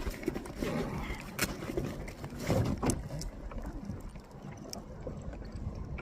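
Handling noise in a kayak: irregular scraping, rustling and a few sharp knocks while a hook is worked out of a small pickerel's mouth, busiest in the first three seconds.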